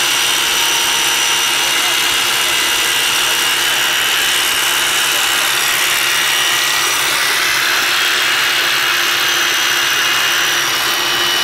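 BDB 803 handheld diamond core drill running steadily under load as it bores into concrete, wet, with the water feed connected: a steady high motor whine over a constant grinding hiss.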